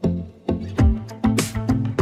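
Background music: plucked string notes over a bass line with a steady beat, a cymbal-like hiss joining about a second and a half in.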